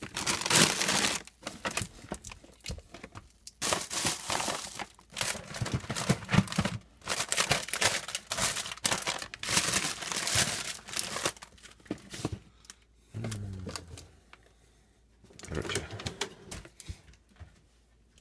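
Plastic bags and packaging rustling and crinkling in repeated bursts with short pauses, as things are handled and moved about. The sound thins out near the end, with one more burst a few seconds later.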